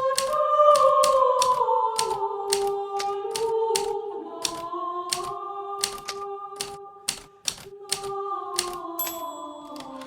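Hermes Baby manual typewriter being typed on at a steady pace, about three sharp key strikes a second. Under it, a soft held musical tone steps slowly down in pitch.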